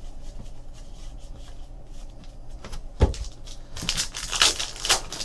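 A stack of trading cards being handled. There is a single knock about three seconds in, then a quick run of crisp flicking and rustling as the cards are shuffled through by hand.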